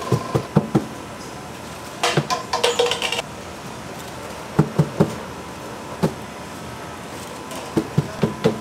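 Irregular knocks and clatter of kitchen utensils and containers being handled, with a short rattling clatter about two seconds in.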